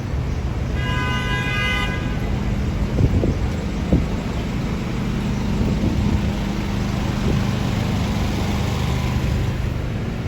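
City street traffic: a car horn honks once, briefly, about a second in. Under it runs a steady low engine rumble of traffic, with two thumps around three and four seconds in.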